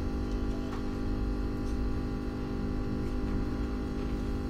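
Steady electrical mains hum with many harmonics, plus a low rumble, in the recording's background, with a few faint clicks.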